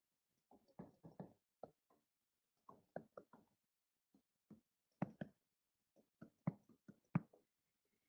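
Faint, irregular taps and clicks of a stylus on a pen tablet during handwriting, a few a second, with silence between them.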